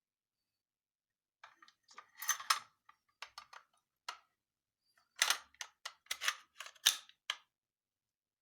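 Metal parts of a Blow F92 blank pistol clicking and scraping as the gun is handled. It starts with a few light clicks, then a louder brief scraping cluster about two seconds in. After a few more clicks, a run of sharp sliding-and-clicking strokes comes from about five seconds in.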